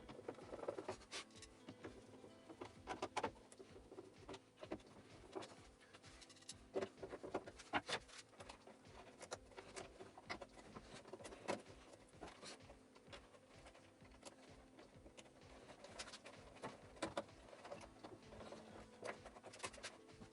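Irregular light clicks and knocks of plastic housing parts and screws being handled as a vacuum cleaner is reassembled.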